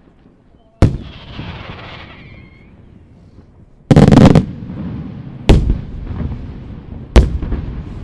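Aerial firework shells bursting: four loud bangs, the loudest about four seconds in. Each is followed by a rumbling echo, and a short crackling follows the first.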